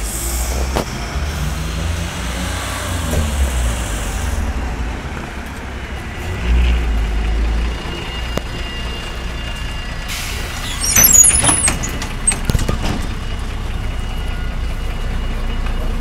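MAZ-105 city bus at a stop, its diesel engine running with a low rumble. Compressed air hisses for about the first four seconds, and a short, louder air hiss with clicks and clatter comes about ten seconds in.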